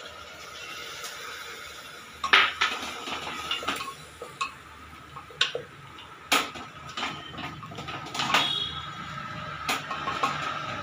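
A spoon stirring in an aluminium pressure cooker, mixing puréed tomato into a fried onion and spice masala, with irregular sharp clinks and knocks against the metal pot starting about two seconds in.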